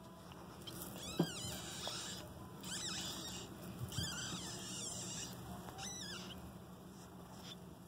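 Four short, high-pitched squeaks, a second or two apart, from a newborn pinky mouse held in the jaws of a Mexican beaded lizard. A sharp click comes about a second in.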